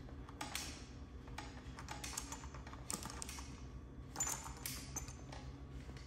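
Light, irregular clicks and short scrapes of a hydraulic brake hose being pushed by hand through an e-bike frame's internal cable routing, over a low steady hum.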